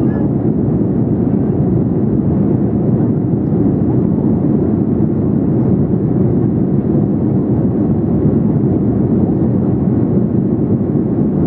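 Steady cabin noise of a Boeing 787-8 airliner in flight, heard from a window seat: an even, low rush of airflow and engine noise.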